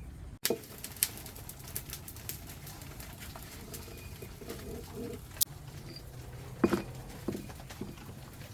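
Dove cooing a few times, low and short, with a few sharp clicks in between.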